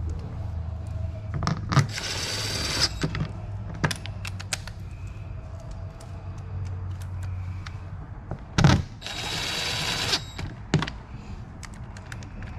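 Hands working on machine parts: scattered clicks, knocks and rustles, with two short hissing bursts about two and nine seconds in, over a steady low hum.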